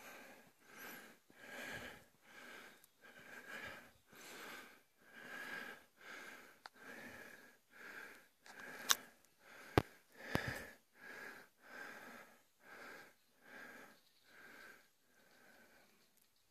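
Footsteps walking steadily over dry, crusted dirt and brush, about one step every 0.7 seconds, with a few sharp snaps around the middle.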